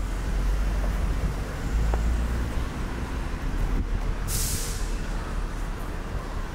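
Street traffic noise: a steady low rumble of vehicles on the road, with a short, sharp hiss about four seconds in.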